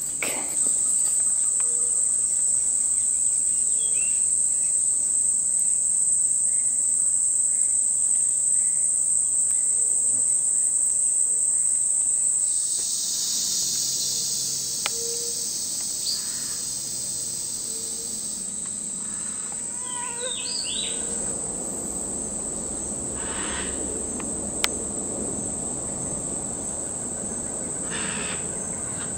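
Steady high-pitched drone of tropical forest insects. A louder hissing insect chorus joins for about six seconds near the middle, and a few short bird chirps and calls come in the last third.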